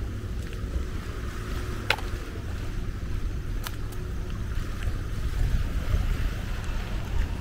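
Wind rumbling on the microphone over a steady outdoor hiss, with two sharp clicks.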